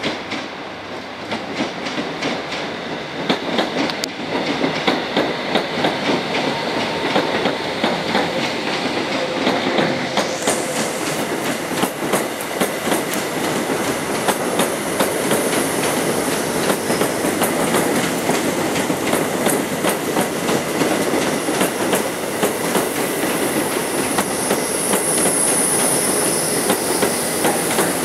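Royal Mail Class 325 electric multiple unit running past on the platform line, its wheels clicking over rail joints and points in a steady clatter. The clatter grows louder as the vans pass close by, and a high hiss joins about ten seconds in.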